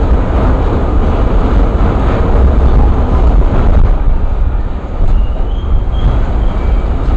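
New York City Subway A train car running on the tracks, heard from inside the car: a loud, steady low rumble of wheels and car body, with a faint high squeal about five seconds in.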